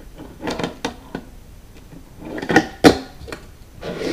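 A few sharp knocks and clacks of hard objects being handled, with two loud knocks in quick succession about two and a half seconds in.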